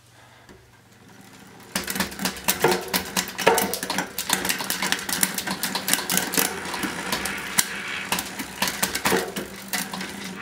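Bicycle drivetrain running with the rear wheel spinning: the chain runs through a newly fitted Shimano XT M8000 11-speed rear derailleur and over the cassette with a dense clicking rattle. It starts about two seconds in.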